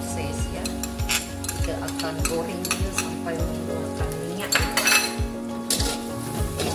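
Stir-frying in a wok: a metal spatula scrapes and taps against the pan about twice a second while the rice sizzles underneath, with one louder scrape a little past the middle.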